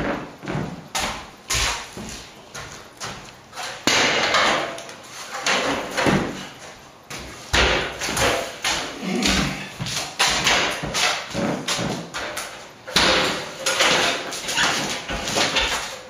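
Aluminium stepladder being carried and set up against a wall: irregular metallic clatters, knocks and short scrapes, with longer scraping or dragging stretches twice.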